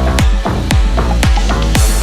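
Upbeat electronic dance music with a steady, fast beat and heavy bass.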